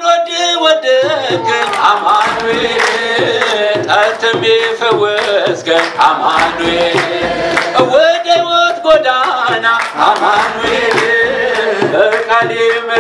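A man singing an Ethiopian Orthodox hymn (mezmur) into a microphone, with a hand drum and hand claps keeping a steady beat.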